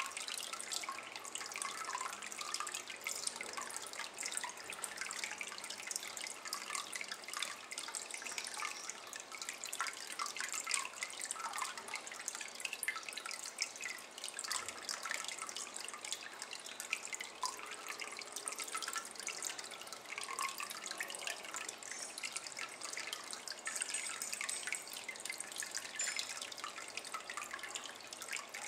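Thin stream of water trickling and dripping into a ceramic basin of water: a steady, unbroken patter of small splashes.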